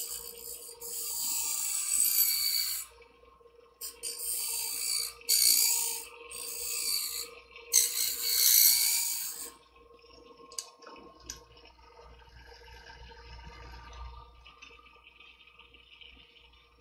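Blade of a curved medical shear ground against the spinning wheel of a Twice as Sharp scissor sharpener, in five hissing passes of one to two and a half seconds each over the motor's steady hum. After about ten seconds only the hum and a few faint clicks remain.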